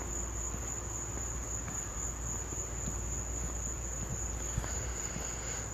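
Steady high-pitched chorus of night insects, such as crickets, over a low steady rumble.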